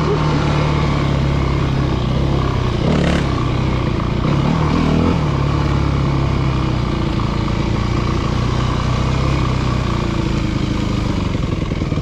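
Yamaha WR250F's 250 cc single-cylinder four-stroke engine running at a steady low speed, its pitch holding level throughout.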